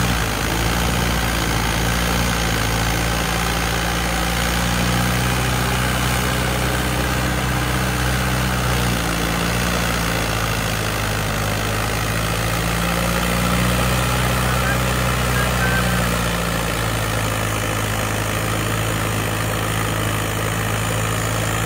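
Modified Mahindra Arjun 605 4x4 tractor's diesel engine running steadily under load while pulling a tillage implement through loose soil. Its note shifts slightly a couple of times.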